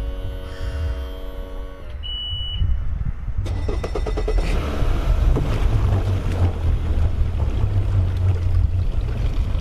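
A steady electronic drone ends about two seconds in, followed by a brief high beep. From about three and a half seconds on, a boat harbour's outdoor ambience takes over: a steady low rumble with a haze of wind and water noise.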